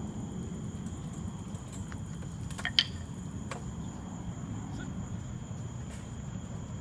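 Quiet outdoor evening ambience: a low steady rumble with a faint steady high-pitched tone over it, and a few faint clicks, the loudest about three seconds in.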